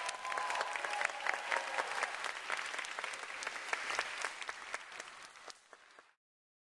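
Audience applauding, the clapping slowly fading and then cutting off abruptly to silence near the end.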